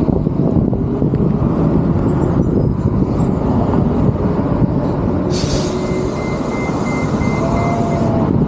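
Steady low rumble of idling traffic and a transit bus at an intersection. About five seconds in, the bus lets out a sudden hiss of compressed air that lasts about three seconds, with a string of short beeps running through it.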